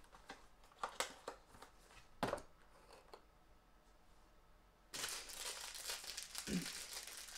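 A few light knocks of a cardboard box being handled, then from about five seconds in a continuous crinkling as the foil wrapper is peeled off a small chocolate egg.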